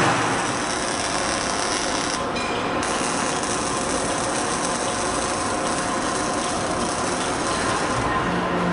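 Motoman K10S welding robot running through its motions in test mode: a steady mechanical whir of its servo motors and gearing, with a few steady tones. The highest part of the sound drops away for about half a second about two seconds in, then comes back.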